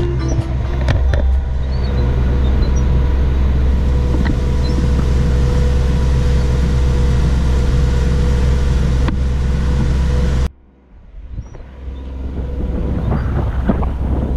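A boat's engine running with a steady low drone, which cuts off abruptly about ten seconds in. Wind buffeting the microphone takes over, rising in gusts.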